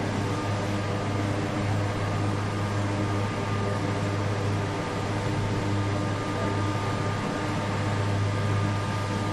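Eurocopter AS332 Super Puma (VH-34) helicopter running on the ground before takeoff, rotor turning. Its twin turboshaft engines and main rotor make a steady low hum with a constant whine above it.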